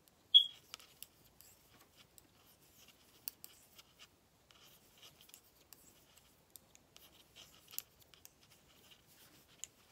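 Knitting needles working knit stitches in cotton yarn: soft, irregular little clicks and scratches as the needle tips meet and the yarn is drawn over them, with one louder, ringing click about half a second in.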